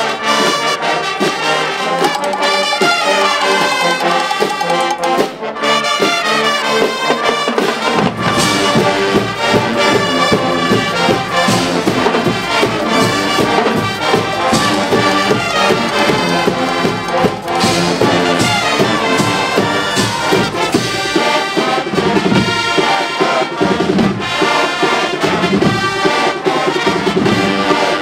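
Guggenmusik band playing loud brass music. A deep, beating low part joins about eight seconds in.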